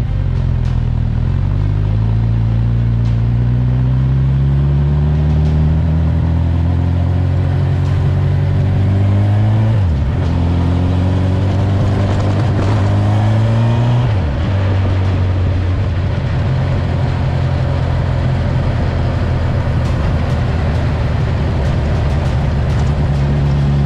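Honda CB1000R inline-four running through a G&G aftermarket exhaust with the baffle fitted, ridden on the road. The engine note climbs slowly and dips sharply twice, about ten and fourteen seconds in, then holds fairly steady.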